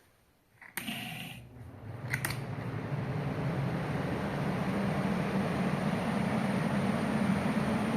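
Cadence electric fan switched on with a click, its blade spinning up to a steady whoosh and motor hum over about two seconds, with a second click partway through.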